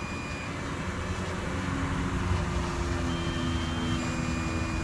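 Drone low-battery warning beeping: a two-note alert, a higher beep followed at once by a lower one, about three seconds in, with the tail of the previous lower beep at the very start. Under it runs a steady low rumble.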